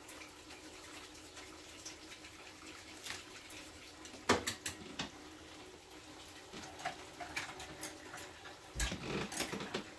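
Kitchen handling sounds: light clicks and knocks of dishes and utensils, with a sharper knock about four seconds in and a dull thud near the nine-second mark.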